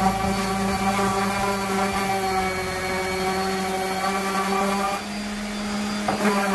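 Electric random orbital sander running steadily on a wooden board, a constant motor whine with the hiss of the pad on the wood.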